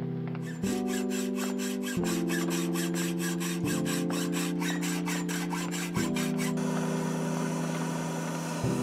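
Fine-toothed hand saw cutting brass sheet in quick regular strokes, about four a second, over background music with slow sustained chords. About six and a half seconds in, the sawing gives way to the steady hiss of a gas forge burner.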